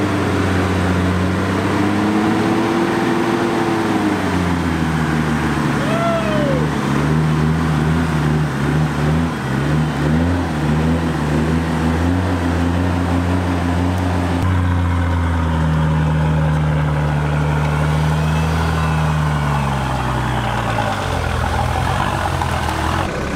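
4x4 engine running and revving under load during a mud recovery on a tow line. Its pitch rises and falls in the first few seconds, holds fairly steady, then drops away near the end.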